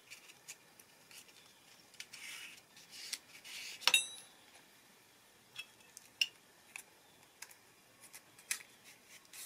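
Small metal parts of a machinist's level clicking and tapping as the steel vial tube is handled and packed with acid-free paper to raise the vial, with soft paper rustles. One sharper clink with a brief ring comes about four seconds in.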